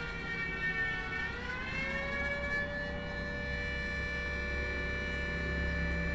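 Flood warning siren sounding in a test: a pitched tone that dips slightly, rises from about a second in, then holds steady, with a low rumble underneath.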